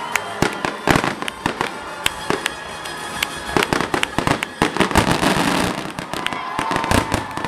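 Aerial fireworks bursting in a rapid barrage: many sharp bangs and crackles each second, overlapping one another.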